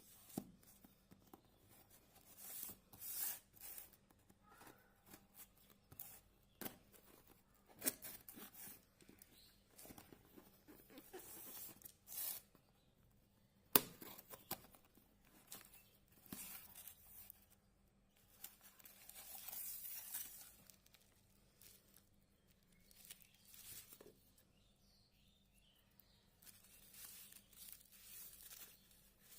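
Smartphone box and packaging being handled and opened: quiet, intermittent rustling and tearing with scattered sharp clicks, the sharpest about fourteen seconds in, and a longer rustle around twenty seconds in.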